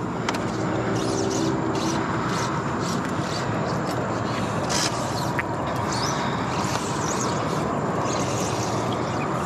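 Steady outdoor background noise with a few faint short clicks and some faint high chirps.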